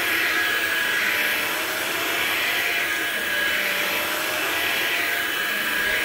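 Hoover Linx cordless stick vacuum running over carpet with its motorized brush roll on. It makes a steady high motor whine, with a fainter lower tone that wavers slightly as it is pushed back and forth.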